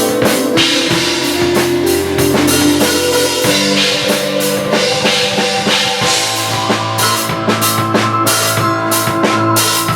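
Large drum kit played busily, with dense cymbal and hi-hat wash, bass drum and snare hits, over held keyboard chords that change every few seconds.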